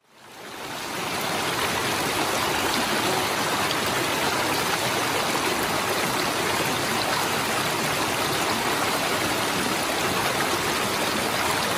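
Shallow rocky creek rushing over stones and small cascades: a steady wash of running water that fades in over the first second.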